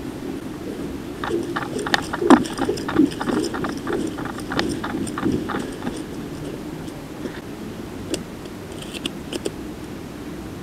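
Running footsteps crunching on dry leaf litter with gear rattling, a quick irregular patter of knocks from about a second in until five or six seconds, then fading to a few light clicks.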